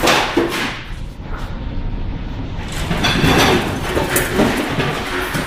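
Storm wind and rough sea aboard a rolling tanker: a constant low rumble under rushing surges of wind and breaking waves, loudest right at the start and again about three seconds in.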